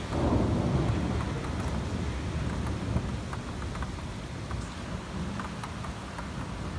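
Thunder rumbling, rising sharply at the start and slowly fading over several seconds, over steady rain with drops tapping close by.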